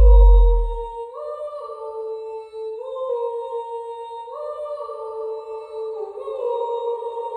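Outro music: a deep bass hit fades out within the first second, then a slow melody of clean, sustained tones steps from note to note every second or two.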